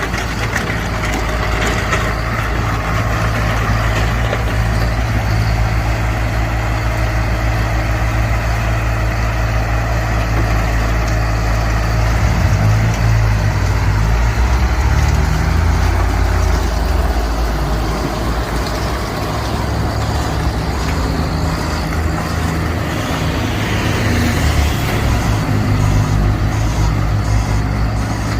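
Heavy vehicle engine running steadily throughout, its engine speed shifting up and down for a few seconds around the middle.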